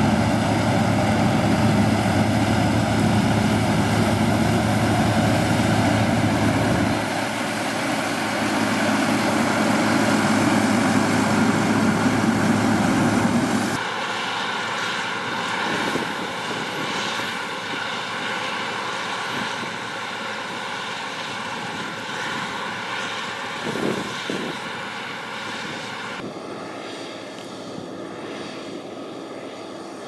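Claas Lexion combine harvester and a tractor running steadily, a dense machine drone, while the combine unloads grain into the tractor's trailer and spreads chopped straw. The sound changes abruptly about 7, 14 and 26 seconds in and is quieter after the change at 14 seconds.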